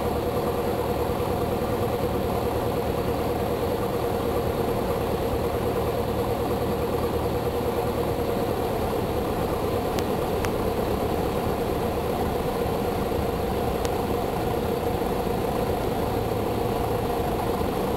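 Beechcraft Sundowner's four-cylinder Lycoming engine and propeller droning steadily in the cockpit as the plane comes in on final approach to land.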